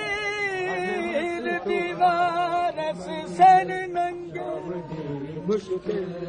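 Noha, a Shia lament, chanted by a group of voices singing in unison, drawing out long held notes.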